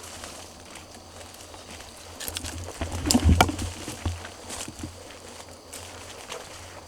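Footsteps walking over the forest floor, a run of irregular crunches, loudest in a cluster about three seconds in.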